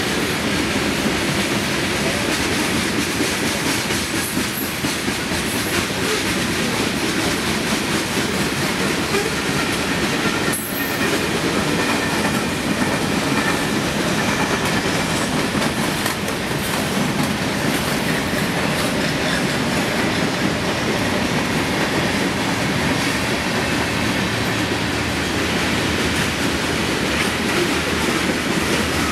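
Freight cars of a passing mixed freight train, tank cars and covered hoppers, rolling by at steady speed: a continuous rumble and clatter of steel wheels on the rails.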